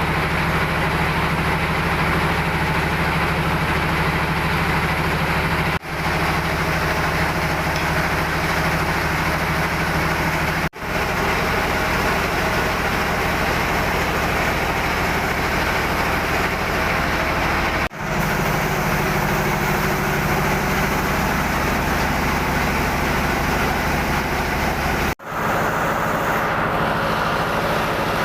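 Rice milling machinery running steadily: an old N50 paddy husker and a rice polisher, with a constant low machine hum under a loud grinding rush. The sound drops out sharply four times and swells back each time.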